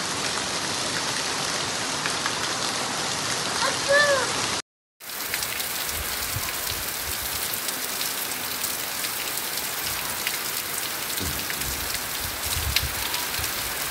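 Heavy rain falling steadily on dirt ground and standing puddles: an even hiss with scattered drop ticks. The sound drops out for a moment just under five seconds in, then the rain goes on. Just before the dropout, a short high call rises and falls.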